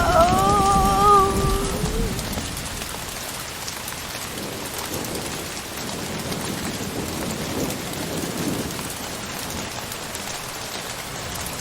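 Horror sound effect: a ghostly wailing cry with pitch that slides and wavers fades out over about the first two seconds. It gives way to steady rain hiss with occasional faint low rumbles.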